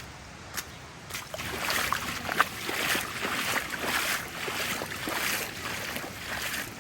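Hiker wading through shallow floodwater on the trail, a splash with each step. The splashes start about a second and a half in and come quick and regular.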